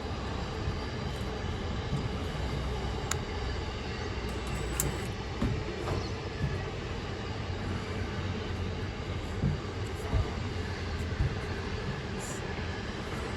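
Steady low rumble under a scatter of short knocks and clicks from the aluminium solar mounting rail and its foot being pulled into place and tightened.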